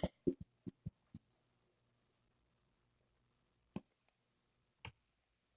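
Faint clicks and taps from plastic glue bottles being handled and squeezed: a quick run of about five in the first second, then one about four seconds in and another near the end.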